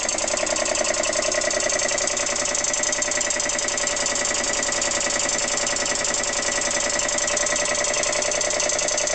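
Vintage Dunlop two-stage air compressor running steadily with a fast, even pulse, pumping the tank up near its 120 psi cut-out.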